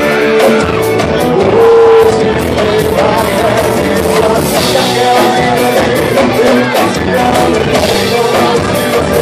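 Live band playing a country song: singing over backing instruments with a steady drumbeat.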